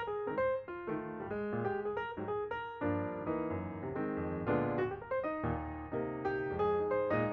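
Background piano music: a steady run of quick struck notes over lower chords.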